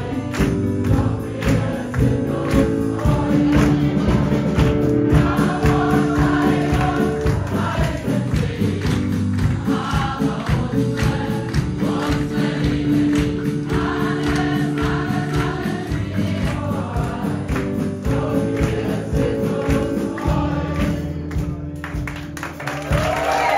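Group of people singing a song together in chorus over music with a steady beat; it eases off briefly near the end.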